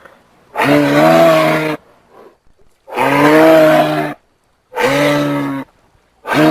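Giraffe calling: a deep, moo-like call about a second long, repeated three times at even spacing, with a fourth beginning near the end.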